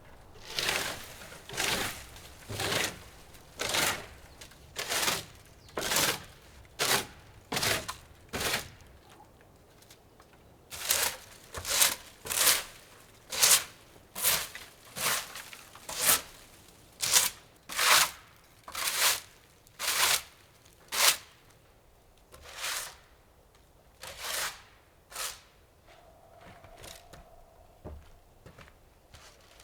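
A series of short rasping strokes, about one a second, in two long runs with a pause of about two seconds between, then a few slower strokes near the end.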